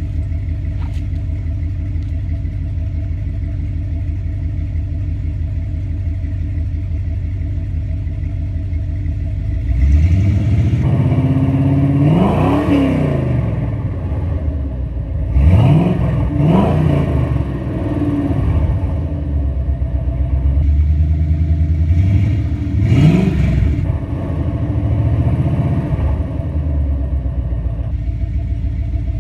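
An engine idling steadily for about ten seconds, then revved again and again, its pitch rising and falling with each blip of the throttle, before settling back to idle near the end.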